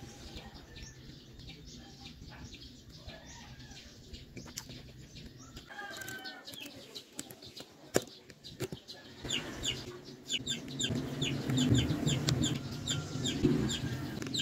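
Birds calling in the background: a fast run of short, high calls through the second half. A sharp click comes about eight seconds in.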